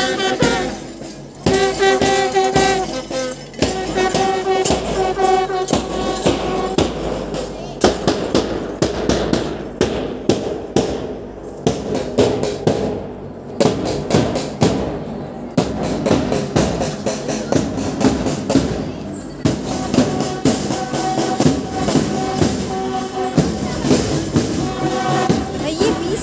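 School marching band playing a march: brass bugles sound held notes over a steady drum beat and hand cymbals. For a stretch in the middle the bugles stop and only the drum and cymbal beat carries on, then the bugles come back in near the end.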